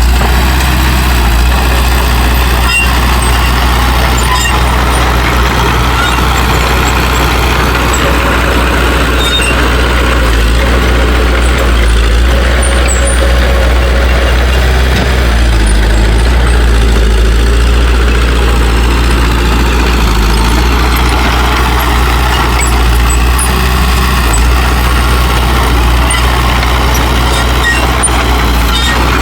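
Heavy diesel engines of earthmoving machines, a bulldozer and dump trucks, running steadily with a continuous low engine sound.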